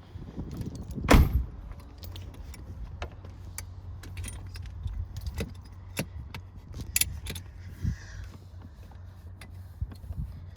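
Clinks, clicks and rattles of a baby car seat's metal latches, buckles and straps being handled and fitted into a car seat. There is one loud thump about a second in, and a steady low hum comes in after it.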